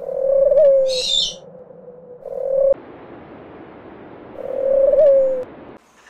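Owl hooting: two long hoots, each with a small upward lift and then a falling slide, and a shorter hoot between them that cuts off suddenly. A brief high bird chirp comes about a second in.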